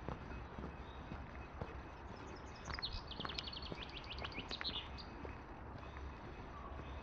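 A songbird sings a fast trill of about twenty short, downward-sweeping high notes, starting about two and a half seconds in and lasting about two seconds, over the scattered knocks of footsteps on a woodland path.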